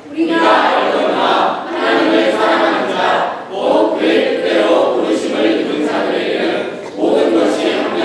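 A group of teenagers reciting Romans 8 from memory in unison, in Korean, many voices together in phrases a couple of seconds long with short breaths between them.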